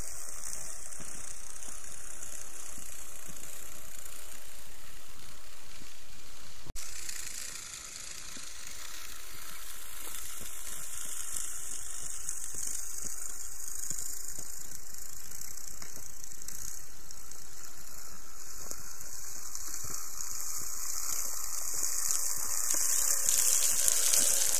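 Steady high hiss on a trail camera's audio, broken briefly about seven seconds in where one recording ends and the next begins.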